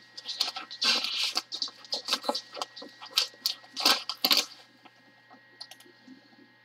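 Wrapping paper and tape on a parcel crinkling and crackling as the tape is slit with a small box cutter: a quick, irregular run of crackles for about four seconds, then only faint handling sounds.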